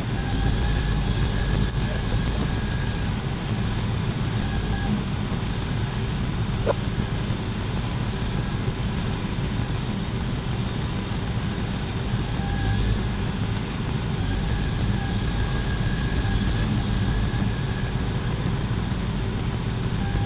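Steady rumble of a large engine running continuously, with faint wavering tones above it and one brief click partway through.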